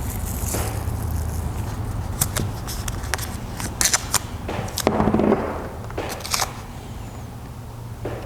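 Handling sounds of taping a glued mitered wooden leg: scattered sharp clicks, crackles and scrapes as masking tape is pulled tight and the leg is rotated on the bench, with a louder rustling burst about five seconds in. A steady low hum runs underneath.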